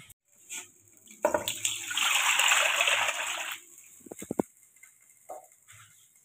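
Liquid pouring steadily into a cooking pot of chicken stock for about two and a half seconds, starting suddenly about a second in. A few quick knocks follow around four seconds in.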